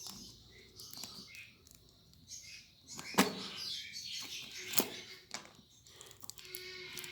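Handling noise: rustling with several sharp knocks, the loudest about three seconds in.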